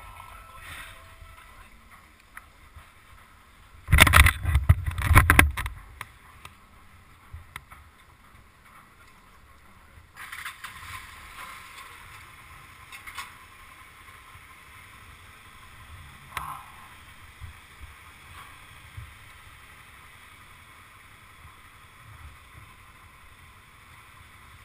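Vehicle ferry crossing ambience: a steady low rumble and hiss, broken about four seconds in by a loud burst of clattering knocks lasting about two seconds, with a few single knocks later.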